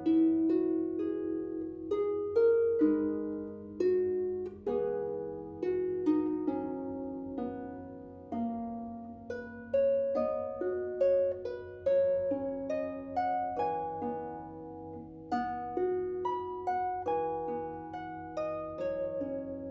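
Solo harp playing a slow, gentle melody over ringing chords, each plucked note sounding sharply and then dying away.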